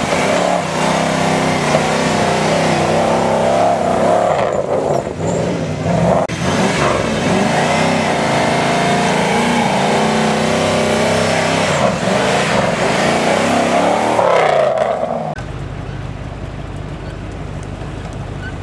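Off-road trial buggy's engine revving hard as it climbs a steep slope, the pitch rising and falling as the driver works the throttle. About fifteen seconds in the revving stops and the sound drops to a quieter, low steady hum.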